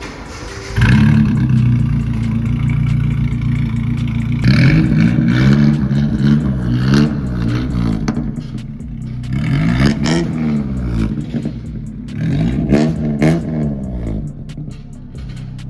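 Nissan Hardbody D21 pickup engine starting about a second in and running at idle, then revved up and back down several times.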